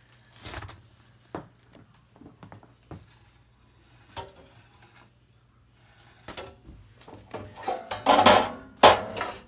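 Oven-mitted hands setting a freshly baked sourdough loaf on a wire cooling rack and handling it: scattered light knocks and rubs, then two loud rustling, scraping bursts near the end.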